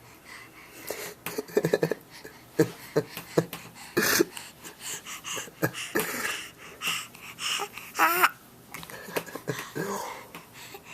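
A baby making breathy, wheezy noises and short vocal sounds, with a wavering high squeal about eight seconds in.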